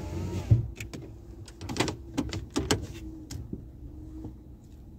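A vehicle's power window motor runs and stops with a thump as the glass seats about half a second in. A series of irregular clicks and knocks follows over a low steady rumble.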